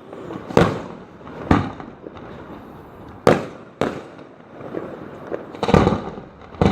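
Fireworks going off: sharp bangs at irregular intervals, each with a short fading echo, and a quick run of several bangs near the end.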